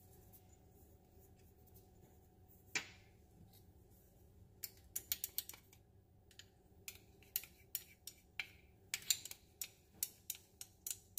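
A small spoon scraping and tapping inside a ceramic ramekin as dry spice is scraped out into a glass bowl. One light tap comes about three seconds in, then from about halfway a scattered run of quick, light clicks and scrapes.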